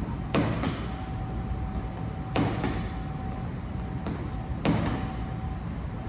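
Boxing gloves punching a hanging teardrop punching bag: two quick pairs of thuds, then a faint hit and a hard single hit near the end, over a steady hum.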